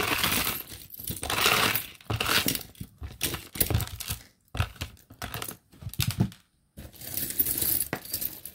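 A heap of costume jewelry (metal chains, bangles and beads) clinking and jangling as hands stir and sort through it, in irregular bursts with short pauses.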